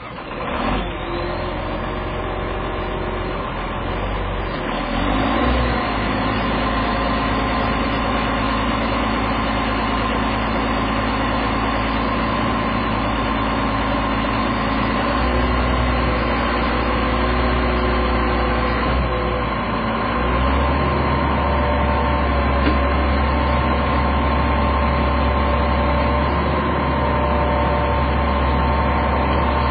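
John Deere 670CH motor grader's diesel engine running steadily up close, with a deep rumble whose note shifts a few times, about five, fifteen and twenty seconds in.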